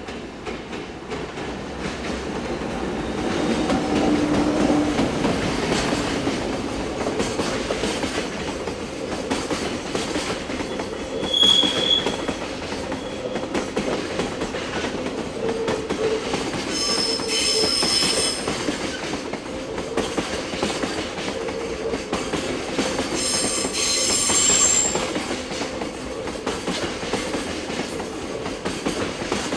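Freight train hauled by an EF510 electric locomotive running past, with a steady rumble and clatter of wheels over the rail joints that builds over the first few seconds. Short high-pitched wheel squeals come about 12 s in, and again in two longer bursts later on.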